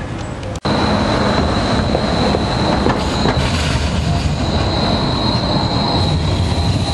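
Rail vehicle running with a steady high-pitched squeal of its wheels on the rails over a loud rumble, starting abruptly about half a second in after a moment of traffic noise.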